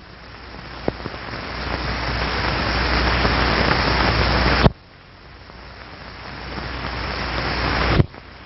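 A rushing hiss of moving air that swells louder, cuts off abruptly a little past halfway, then builds again and cuts off near the end. A faint click about a second in.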